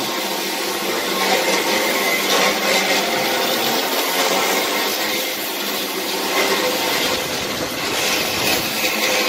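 Handheld angle grinder grinding on a steel frame, a steady abrasive whirring.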